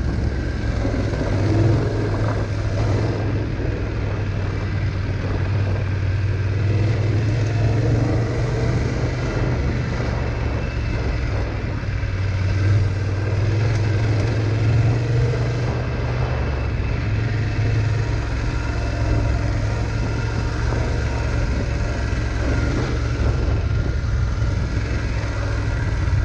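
Motorcycle engine running steadily under way, heard close up from on the bike, with constant rough noise from riding over a stony dirt trail.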